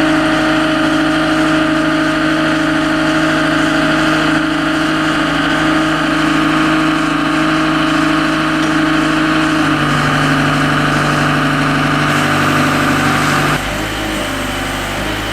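A motor or engine running steadily with a constant hum. About ten seconds in its tone shifts, and a few seconds later it drops a little in level.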